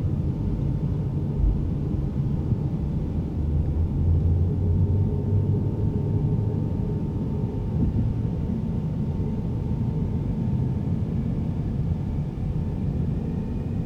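KC-135 tanker's four turbofan engines spooling up for the takeoff roll, a steady low rumble heard inside the cockpit.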